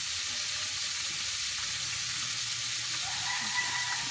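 Steady background hiss. A faint held tone joins it about three seconds in, sinking slightly in pitch.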